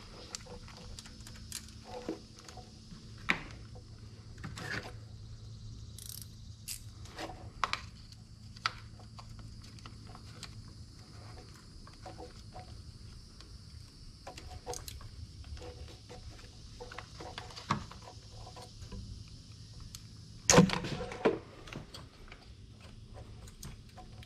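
Scattered small metallic clicks and knocks of a wrench and hands working at a bolt in a cramped engine bay, over a steady low hum. A louder cluster of knocks comes near the end.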